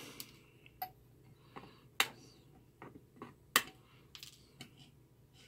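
Light, irregular clicks and taps of small tools and parts being handled and set down on an electronics workbench, about a dozen in all, the sharpest about two seconds and three and a half seconds in.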